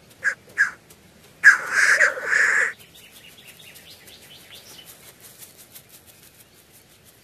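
Male black grouse calling on its lek: three short harsh calls, then a loud, harsh, drawn-out call about a second and a half in lasting just over a second. Faint high chirping follows.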